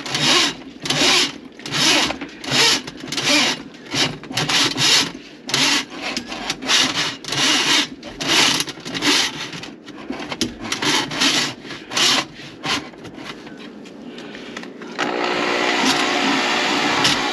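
Rhythmic rasping back-and-forth strokes, about one and a half a second, like hand-sawing or scraping. About fifteen seconds in they stop and a small motor starts running steadily.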